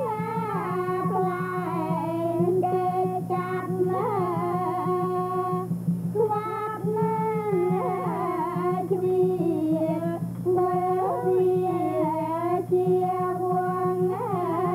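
Cambodian classical dance music: a singer's long, wavering held notes over a pinpeat ensemble with gong circle and drums.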